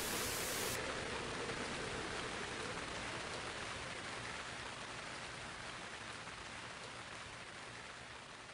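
Steady hiss of a rain sound effect that fades out slowly.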